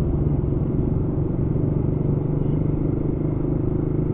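Motorcycle engine running steadily while riding, heard close up from the rider's seat over road noise.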